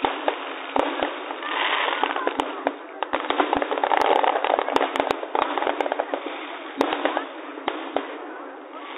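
Aerial fireworks going off: many sharp bangs at irregular intervals over continuous crackling, thickest in the middle of the stretch.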